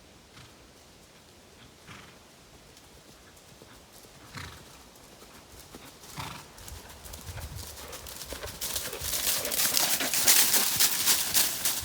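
A pony's hooves on the trail: a few scattered steps at first, then a busy run of hoofbeats that grows louder over the last few seconds.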